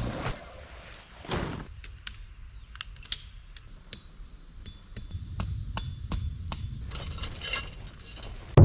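Scattered light knocks and clicks, irregular, with a cluster of rapid clatters near the end, followed by a loud sudden low boom at the very end that rings on and fades.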